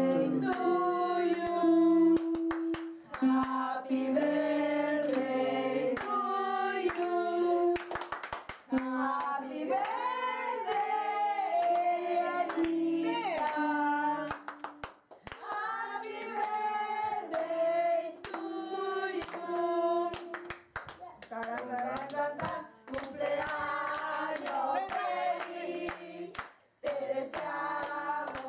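A small group of voices singing a birthday song together, clapping their hands along, with a couple of short breaks in the singing.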